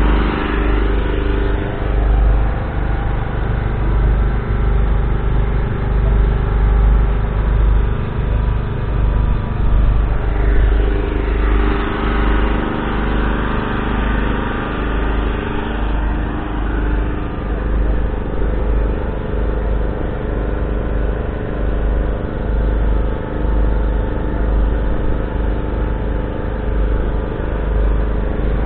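Valtra T254's 7.4-litre six-cylinder diesel engine running steadily. About ten seconds in, its pitch dips and then climbs back as the revs drop and pick up again.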